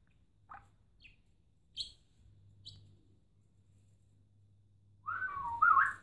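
Pet budgerigar giving a few short, soft chirps, then a louder wavering, warbling whistle near the end.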